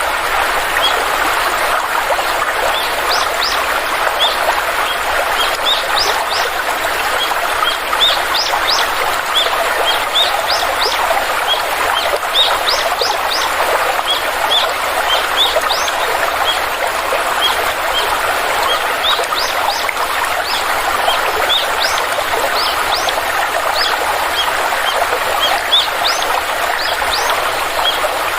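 Stream water flowing steadily, with many short, high chirps from small birds throughout.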